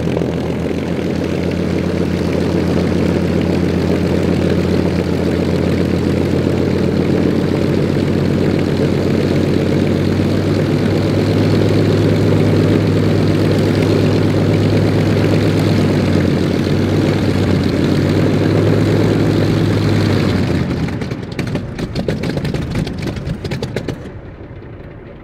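Supermarine Spitfire Mk.XVIIIe's Rolls-Royce Griffon V12 running steadily at low power as the fighter taxis, its five-blade propeller turning. About twenty seconds in the engine is shut down and runs down with a spatter of uneven pops and clicks while the propeller slows.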